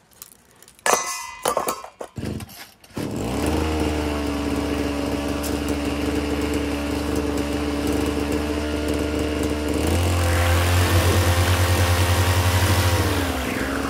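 A gas-canister brush cutter's small engine catches about three seconds in, after a few knocks, and idles steadily with its nylon line head turning. About ten seconds in it revs up, with a pulsing whir from the spinning head, and near the end drops back to idle. This is the test run of a replacement Honda gear-head assembly fitted in place of a worn-out bearing head, and it works.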